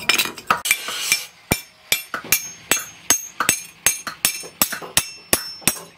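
Hand hammer striking a steel axe head on a steel anvil block, about three blows a second, each with a short metallic ring. There is a rough scraping noise through the first second or so.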